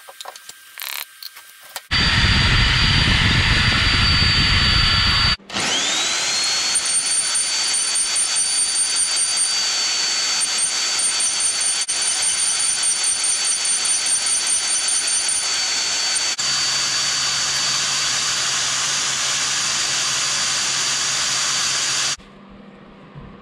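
Large corded electric drill boring into the steel crankshaft end of a Wisconsin VH4D engine. The motor runs with a steady high whine for a few seconds, stops briefly, spins back up with a rising whine, and runs on steadily until shortly before the end.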